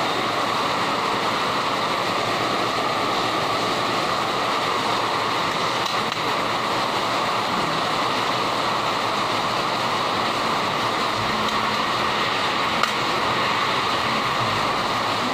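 Heavy rain pouring steadily, a hard downpour from a storm that is taken to be a typhoon.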